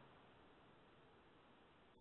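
Near silence: faint steady hiss.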